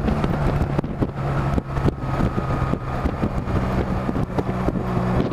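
Honda Rebel 250's parallel-twin engine running steadily at cruising speed, with wind rushing over the microphone.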